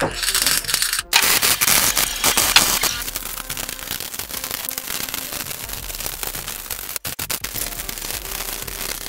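Stick (arc) welding: the arc crackles and sputters steadily on steel, broken off briefly about a second in and again near seven seconds.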